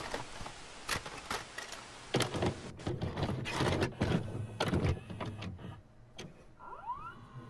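Videocassette recorder loading a tape: a run of mechanical clunks and clicks with the motor whirring, and a short rising whine near the end.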